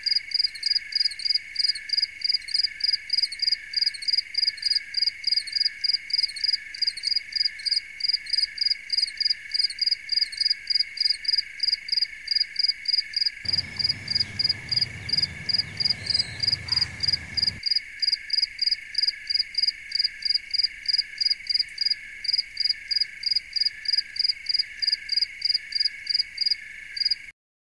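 Insects chirping in an even, rhythmic pulse about three times a second over a steady high drone of more insects. A low rumble comes in for a few seconds in the middle, and the sound cuts off suddenly near the end.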